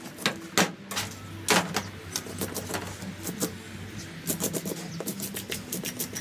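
A snapper being scaled with a hand fish scaler on a plastic cutting board: scraping strokes that flick off the scales as sharp rasping clicks, a few separate strokes at first, then a fast run of them in the second half.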